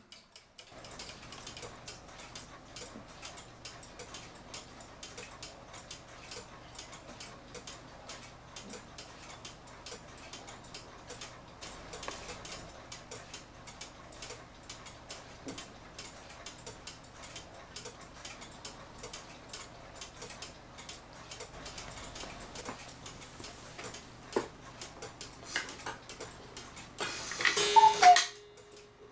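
Mechanical cuckoo clock with an August Schwer movement ticking steadily. Near the end there is a short, louder sound with a falling whistle-like tone.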